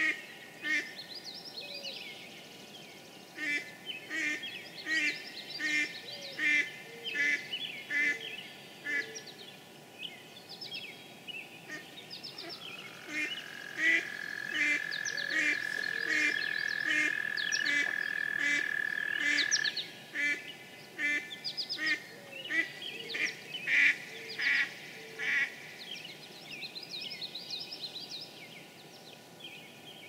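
Mallard quacking in repeated series of short calls. From about 12 seconds in, an American toad gives one long, steady high trill lasting about seven seconds, while songbirds sing faintly throughout.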